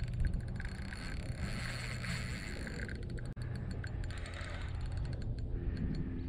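Steady low rumble of wind on the microphone, with light clicking and ticking from the fishing reel as a hooked fish is played and reeled in.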